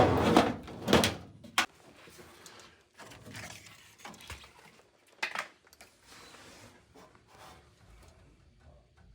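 Sheet-metal furnace cabinet panel being handled and opened. There are loud scrapes and knocks in the first two seconds, then scattered lighter clicks and rustles with a sharp knock about five seconds in.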